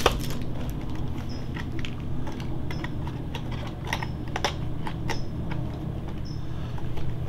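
Irregular light clicks and taps of small plastic parts being handled: a dipole antenna and an FPV monitor being fitted together by hand. A few short, faint high-pitched chirps recur every second or so.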